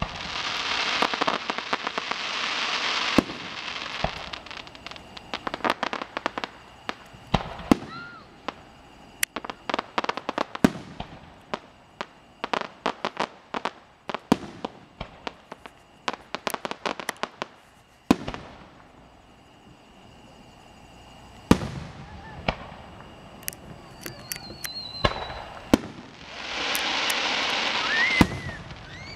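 Aerial firework shells bursting. It opens with a dense crackle, then a rapid series of sharp bangs and pops for about fifteen seconds. After a short lull come more single bangs and another long crackle near the end.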